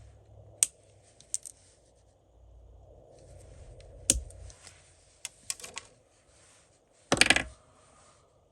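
Scattered sharp clicks and taps of small tools and parts being handled on a workbench. The loudest is about four seconds in, and a quick rattle of several clicks comes about seven seconds in.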